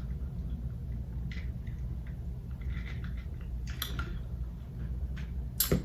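Close-up eating sounds of a person chewing a Popeyes meal: a few short, wet mouth clicks and smacks, the loudest near the end, over a steady low hum.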